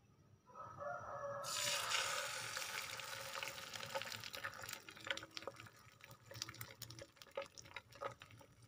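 Beaten egg poured into hot cooking oil in a frying pan: a loud sizzle breaks out about a second and a half in, then carries on as steady sizzling with crackling pops of spattering oil.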